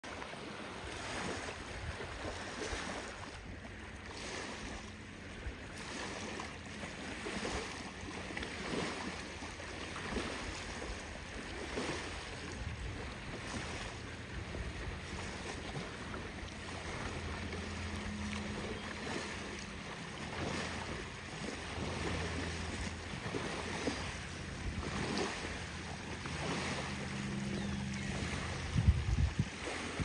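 Small waves lapping and washing onto a sandy shore in soft swells every second or two, with wind on the microphone. A low steady drone runs underneath, and a sharp low thump comes near the end.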